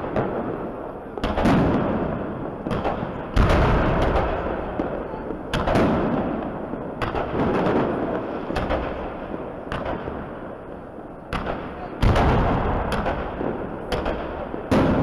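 Aerial fireworks bursting in a loud series of bangs, roughly every one to two seconds. Each bang trails off in a long rumble echoing between the surrounding buildings.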